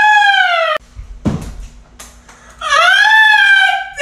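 A person giving drawn-out, high-pitched wordless cries of mock pain over a stubbed toe. The first cry cuts off abruptly under a second in. A low thump comes a moment later, and a second long wail follows near the middle.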